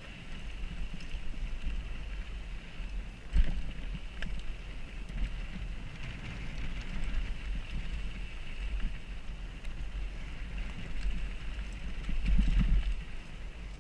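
Wind buffeting and trail rumble on a helmet-mounted action camera during a mountain-bike ride, with a sharp knock about three seconds in and a louder stretch of rumble near the end.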